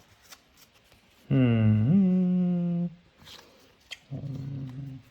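A man humming two notes: a long one that slides up at the start and then holds, and a shorter, quieter one about a second later, with faint clicks of cards being handled.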